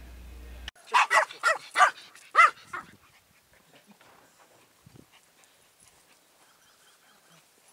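Pomeranian barking: five quick, high-pitched barks starting about a second in, over about a second and a half, then only faint scattered ticks.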